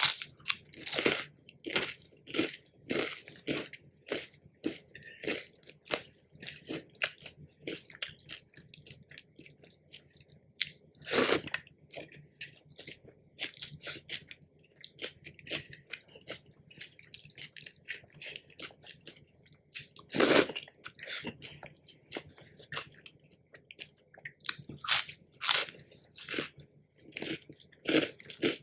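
A person eating crunchy food close to the microphone: steady chewing with sharp crunches, and a few much louder bites spaced several seconds apart.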